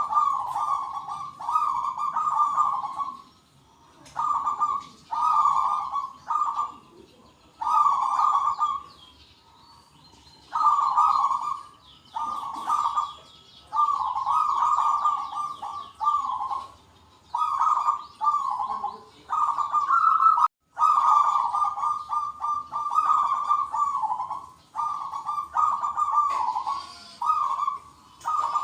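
Zebra doves (perkutut) cooing in repeated phrases of about a second each with short gaps, several birds calling back and forth. Fainter high chirps sound above the coos.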